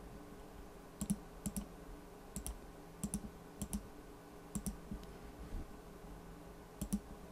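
Computer mouse clicking about eight times at an uneven pace, each click a quick pair of ticks from press and release, as numbers are entered on an on-screen calculator. A faint steady hum lies underneath.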